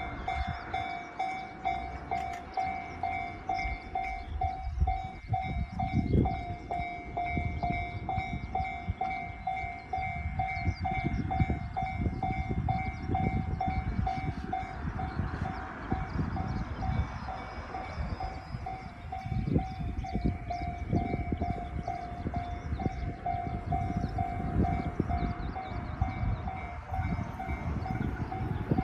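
Japanese railroad crossing alarm ringing in an even, repeating ding. Under it, a train rumbles through the crossing with a run of wheel knocks over the rail joints.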